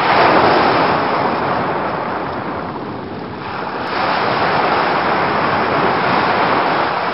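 Ocean surf, a dense rush of breaking waves. It eases a little about three seconds in and swells again just before four seconds, where there is a faint click.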